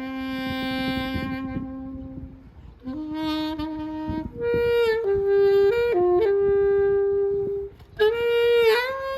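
Saxophone playing a slow melody of long held notes, with short breaks between phrases about two and a half and eight seconds in.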